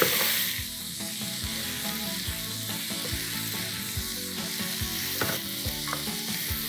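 Chopped celery, onion and garlic frying in oil with browned minced meat in a pot: a loud sizzle that eases about half a second in to a steady fry, with a spoon clicking and scraping against the pot as it is stirred.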